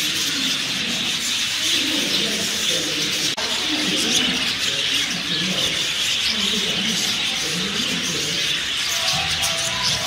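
Many birds chirping and calling continuously, a dense chatter with some lower cooing-like calls, broken by a brief dip about three seconds in.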